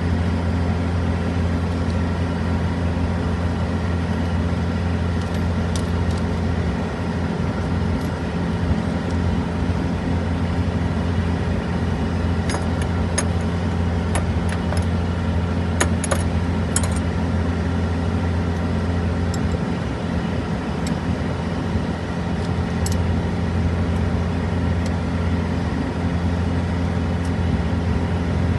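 A truck engine idling steadily, a low even hum. A few light clicks and taps come around the middle.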